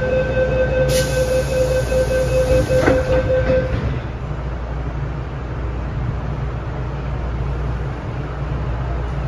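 MTR Metro-Cammell M-Train doors closing: a steady high warning tone sounds for about three and a half seconds while the doors slide shut, with a knock as they meet about three seconds in. Under it and after it runs the carriage's steady low rumble.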